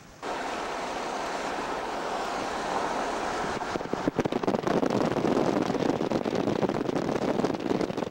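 Wind rushing over the microphone of a camera filming from a moving car, starting suddenly and turning into rapid, loud buffeting about halfway through.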